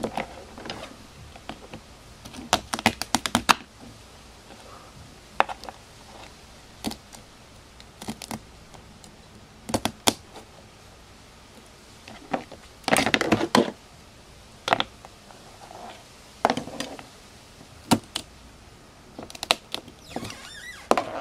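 Blue crab shells cracking and snapping as the crabs are pulled and cut apart on a plastic cutting board, with knife clicks and taps. Irregular sharp clicks and short crunching bursts, the longest a little past halfway.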